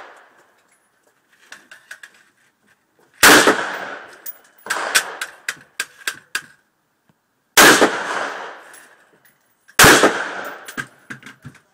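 Three loud gunshots on a shooting range, about three, seven and a half, and ten seconds in, each with a long echoing tail. Fainter sharp cracks and clicks come in between.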